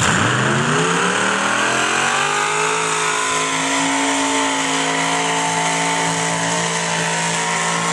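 A pulling tractor's engine revs up, its pitch climbing over the first three seconds or so, then holds at high revs as the tractor drags a weight-transfer sled down the track.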